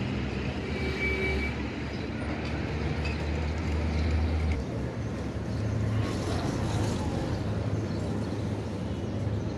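Steady low engine hum with background street noise; the hum shifts slightly higher in pitch about halfway through.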